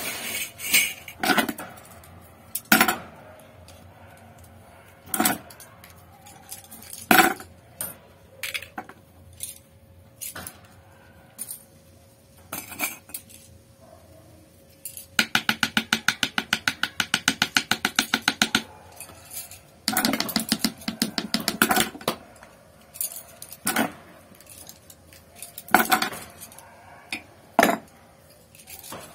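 Metal brush ferrules clinking and knocking against a wooden work block as flat brushes are put together by hand: scattered single knocks, a quick run of about ten taps a second midway, and a short clatter after it.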